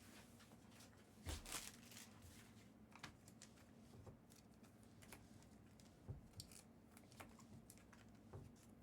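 Faint handling of trading cards: scattered light clicks and rustles as cards are slid and set down, with a louder brief rustle about a second and a half in.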